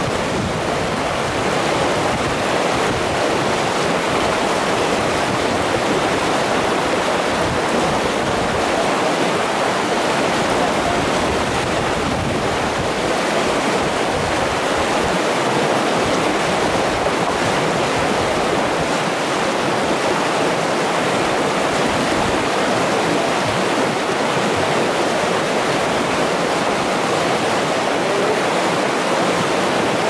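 River rapids rushing over rocks: a steady, loud wash of whitewater.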